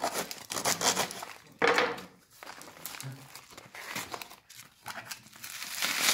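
Packaging being crinkled and torn by hand during an unboxing, in irregular bursts, loudest about a second and a half in and again near the end.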